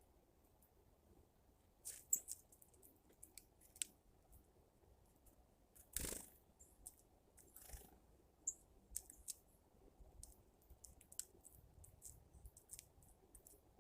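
Faint, irregular sharp taps and clicks of birds pecking, with a short louder rustle about six seconds in.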